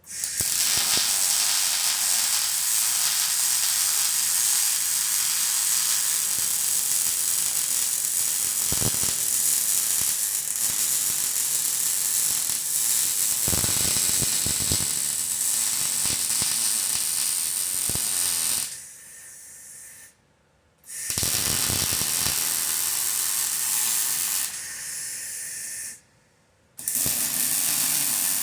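Welding arc sizzling and crackling in long continuous beads, starting abruptly, breaking off twice in the second half, and starting again each time.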